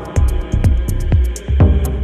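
Background electronic music with a steady beat, a kick drum about twice a second under hi-hat ticks.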